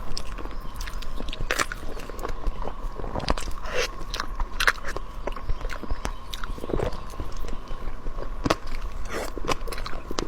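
Close-miked mouth sounds of a person chewing grilled eel: irregular wet smacks and small clicks of biting and chewing.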